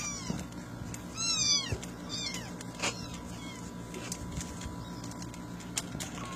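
Kittens mewing: high cries that fall in pitch, several in the first two and a half seconds, the loudest about a second in, and one more near the end. A few sharp clicks and a steady low hum lie underneath.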